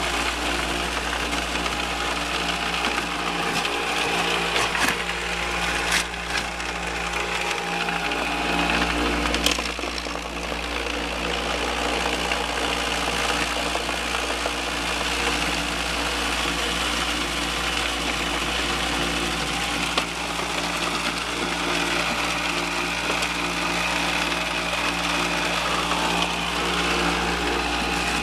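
Gold-prospecting shaker box running: a steady mechanical hum from its drive, with water spraying onto the shaking screen deck and rocks rattling across it. There are a few sharp knocks in the first ten seconds.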